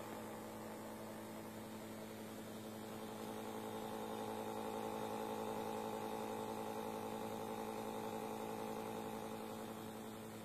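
Floppy disk drive spindle motor, rewired to run overclocked on 12 V at 1 A, spinning with a steady electric hum and whine. It grows louder about three seconds in and eases off near the end.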